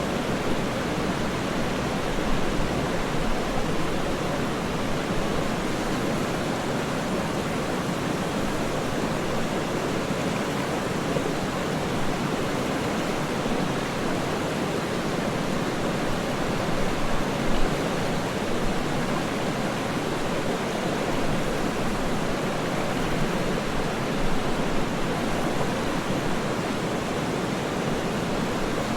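Waterfall rushing with a steady, unchanging roar of falling water, with no separate splashes standing out.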